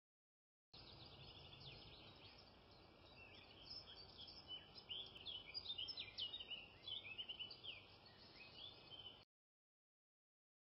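Faint chorus of birds chirping: many short, overlapping calls over a low hiss. It is busiest in the middle and cuts off suddenly about a second and a half before the end.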